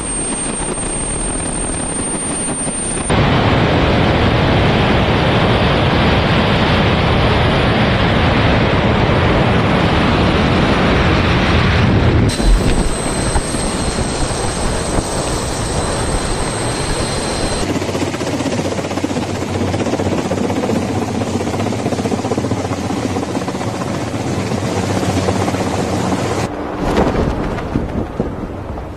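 Loud rushing air and engine noise from a jet-powered wing in flight, in several cut-together shots that change level abruptly. For a few seconds in the middle a steady high whine sits over the noise.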